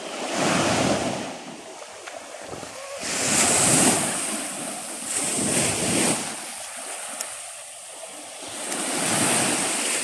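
Gentle surf breaking and washing up a sandy beach, swelling and fading about four times.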